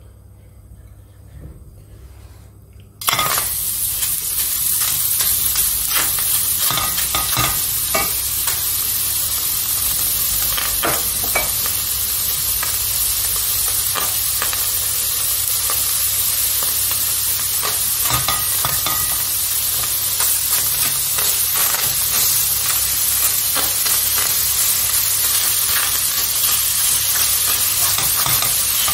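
Food going into a hot oiled pan: after a quiet start it begins sizzling suddenly about three seconds in, then fries steadily with small crackling pops.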